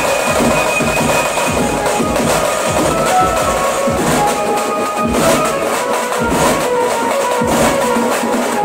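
A pad band playing loud teenmaar music: electronic drum pads and percussion keep a steady beat under a Casio keyboard melody.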